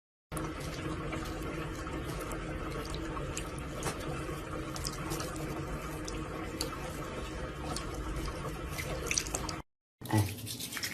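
Steady running water with a few small clicks scattered through it.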